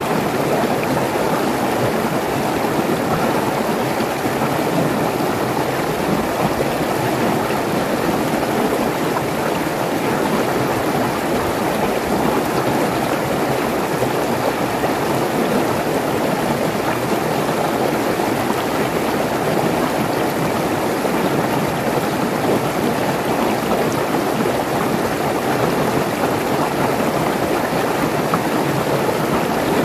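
Mountain stream rushing over rocks in small rapids: steady, unbroken water noise.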